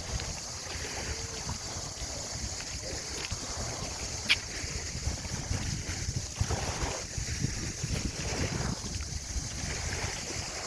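Wind buffeting the microphone in gusts, over a steady high-pitched hiss, with one sharp click about four seconds in.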